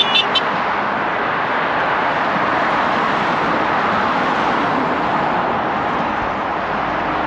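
Steady traffic noise from cars passing on the road, with a couple of quick high beeps right at the start.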